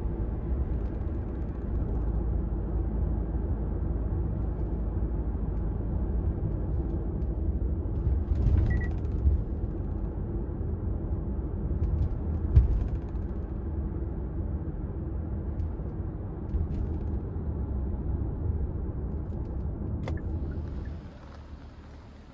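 Steady low rumble of road and engine noise inside a moving car's cabin, with a few short knocks and creaks, the sharpest about twelve seconds in. Near the end it drops away to a quieter, hissing outdoor background.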